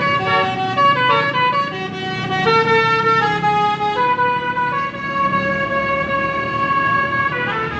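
Telolet basuri musical horn on a tour bus playing a melody of several tones at once. It starts with a run of quick changing notes, holds long notes for a few seconds, and ends with another quick run.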